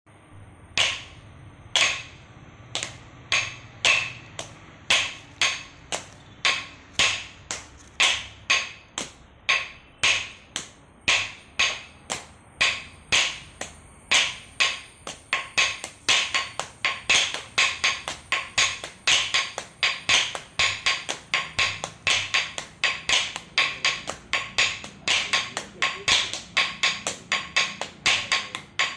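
Two chenda students beating wooden practice blocks with curved chenda sticks in unison, practising the thakkitta rhythm pattern. The sharp wooden knocks start slow, about one a second, and grow steadily faster as the pattern moves up through its speeds.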